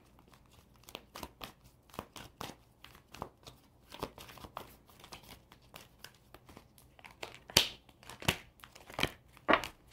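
A deck of oracle cards being shuffled and handled: a string of soft flicks and snaps, with a few louder slaps of cards in the last few seconds.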